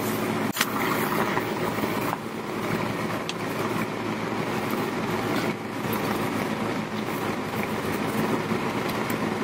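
Steady mechanical hum over a constant rushing noise, with one short knock about half a second in.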